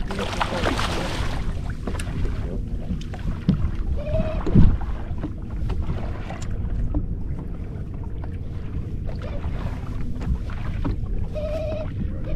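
Wind buffeting the microphone on an open boat, with a burst of splashing in the first second or so as a jewfish (mulloway) is scooped into a landing net. A single thump comes about four and a half seconds in.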